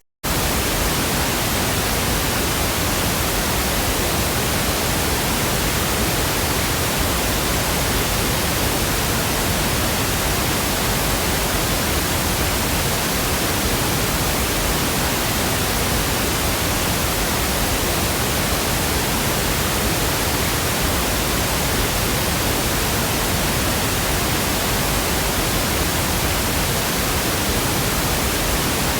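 Steady pink noise, an even hiss with no changes, broken by a split-second dropout right at the start.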